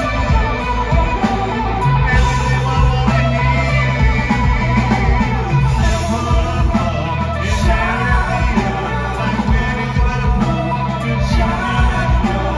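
Live rock band playing: electric guitars, bass and drums under a male lead vocal, heard as a loud concert mix.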